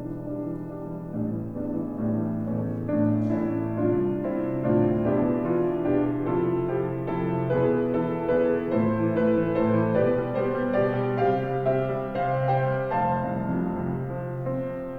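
Slow instrumental music led by piano, played live, with held chords that change every second or so.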